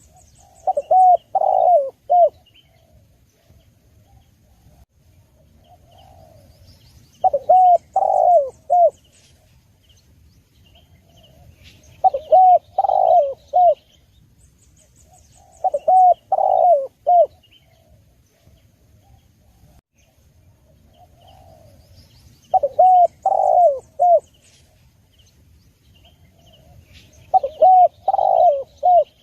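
Spotted dove cooing: a phrase of several quick, rounded coos, repeated six times about every five seconds. Faint high chirps of small birds sound between the phrases.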